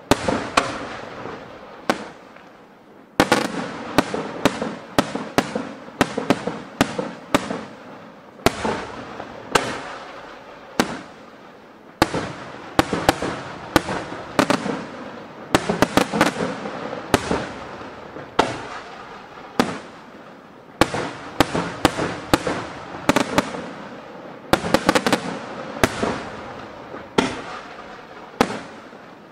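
Aerial firework shells bursting in quick succession: sharp bangs a few per second, each trailing off in a rolling echo, with a brief lull about three seconds in.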